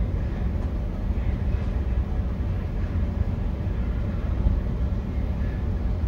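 Steady low rumble of an idling vehicle engine, heard from inside the parked vehicle's cab.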